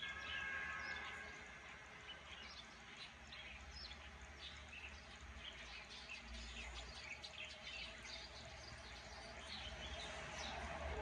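Faint, scattered chirping of small birds over a low steady background hum.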